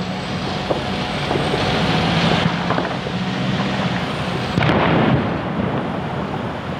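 Fireworks going off in the distance: scattered bangs and crackles over a steady rushing noise, with a louder burst of bangs about four and a half seconds in.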